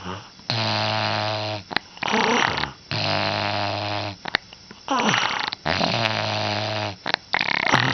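Snoring: three long buzzing snores about every two and a half seconds, each held for over a second, with a shorter falling breath between them.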